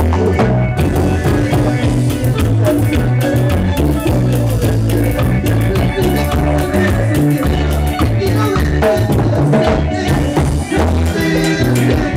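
Live Latin band playing a song with a steady beat: timbales and cymbals over a strong electric bass line.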